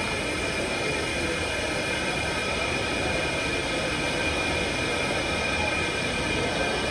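Laser engraving machine running steadily while it engraves a Zippo lighter: an even whir with faint high steady tones over it.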